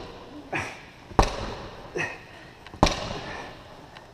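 Medicine ball wall tosses: two loud thuds about a second and a half apart as the ball strikes the wall, each echoing in the gym, with fainter knocks between them.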